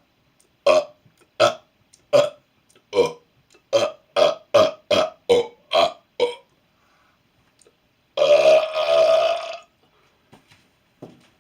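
A person burping deliberately: a run of about eleven short burps, coming faster from about four seconds in, then one long, drawn-out burp lasting about a second and a half near the end.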